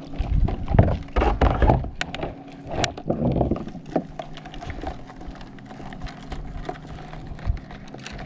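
Paddle and gear knocking against the plastic hull of a sit-on-top kayak: a cluster of thumps and clicks in the first few seconds, then a few lighter knocks.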